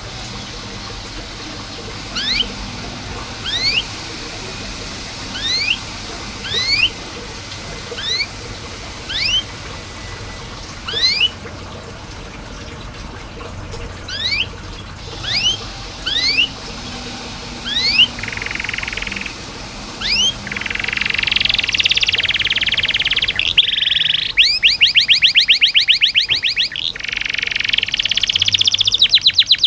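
Domestic canary calling and singing: short rising 'cuit' chirps repeated about once a second, breaking into fuller song with fast rolling trills about two-thirds of the way through.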